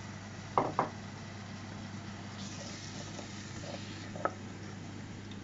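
A spoon knocking on a saucepan while a curry sauce is stirred: two knocks close together about half a second in, and one more click about four seconds in, over a steady low hum.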